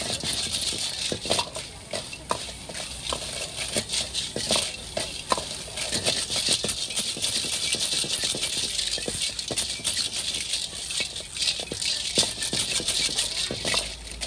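Snail shells clattering against a steel wok as they are stir-fried and tossed with a metal ladle, a quick irregular rattle over a steady hiss of frying and the gas flame.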